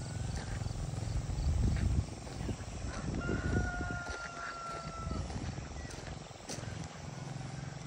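A rooster crowing once, a single long held call starting about three seconds in. A low rumble fills the first two seconds.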